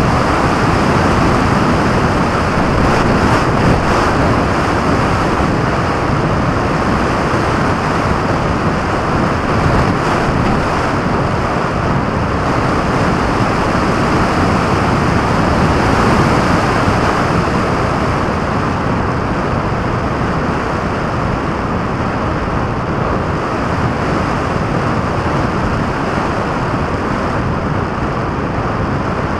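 Steady loud rush of airflow over the microphone of a camera mounted under the wing of a radio-controlled model aircraft in flight, with no motor heard.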